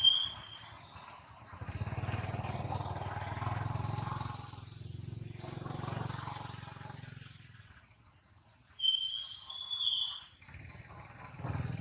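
A low engine drone passes at a distance, swelling over a few seconds and fading away, over a steady high insect hiss. Short high-pitched chirping calls come at the start and again near the end.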